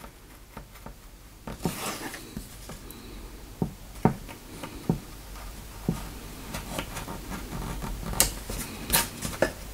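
Thumb carving knife cutting lines into a wooden board: a longer scraping cut about two seconds in, then a run of short, sharp ticks as the blade slices and lifts out wood fibres.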